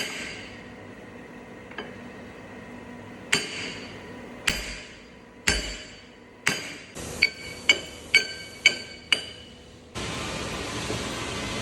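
Series of sharp metal-on-metal hammer strikes, about eleven, each leaving a short ringing tone; they come more quickly near the end, about two a second. About ten seconds in, a steady hiss starts abruptly.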